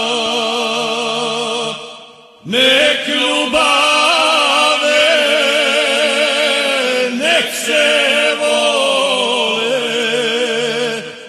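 Male folk vocal group singing a Serbian traditional song together, with long held notes that waver in pitch. The singing breaks off about two seconds in and comes back in loudly half a second later, and dips again near the end.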